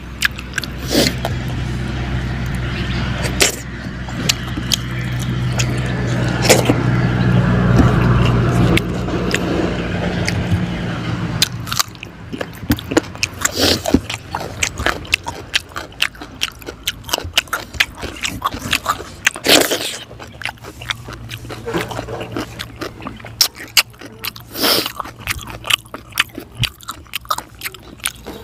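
Close-up eating sounds of a person eating fried fish head with his fingers: wet chewing, lip smacks and sharp crunchy clicks throughout. A low engine hum swells and fades away over the first twelve seconds.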